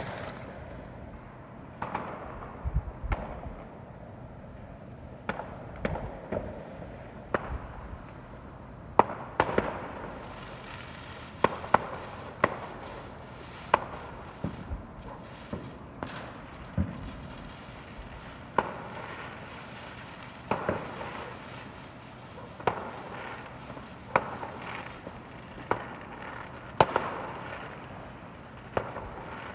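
Fireworks going off: sharp bangs every second or two at irregular intervals, over a steady background of fainter crackle and hiss.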